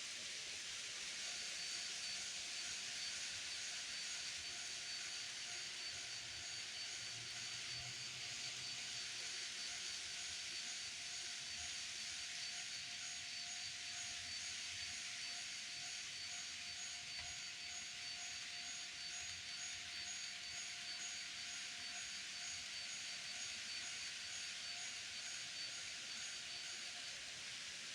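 Electronic warning sound of an N-scale model level crossing, ringing steadily in high and mid tones over a constant hiss; it starts about a second in and stops shortly before the end, as the crossing turns on for a passing train and off again.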